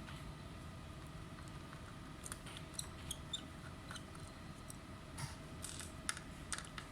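Scattered small clicks, ticks and light scrapes of hands handling computer parts and tools, over a faint steady hum.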